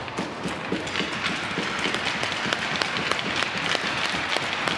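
Crowd applauding in a hockey arena: dense clapping that starts suddenly and keeps up steadily.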